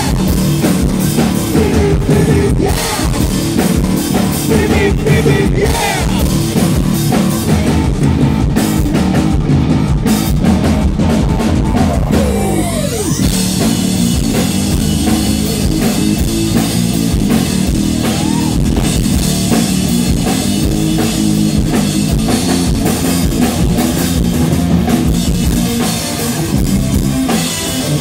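Live rock band playing: electric guitar, bass guitar and drum kit with a singer, through the stage PA. The sound gets brighter and fuller about halfway through.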